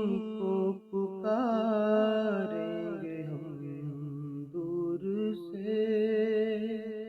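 Male voice singing a naat unaccompanied, holding long ornamented notes over a steady hummed drone, with a short break about a second in; it fades out near the end.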